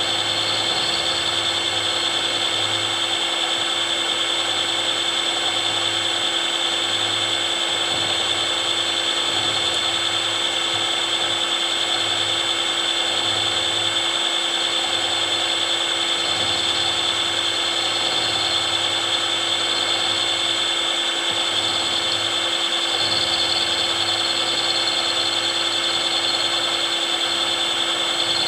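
Milling machine running steadily with a 6 mm end mill taking a slow-feed slotting cut, a constant machine whine with a few fixed tones and no pauses.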